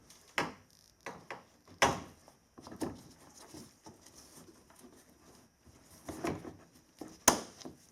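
Scattered clicks and knocks of a battery hold-down bracket and its hardware being handled and set in place, with sharp clicks about half a second in, near two seconds and about seven seconds in, and softer rattles between.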